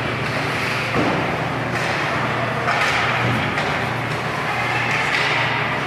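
Ice hockey arena ambience: a steady low hum under general crowd noise, with a single knock about a second in.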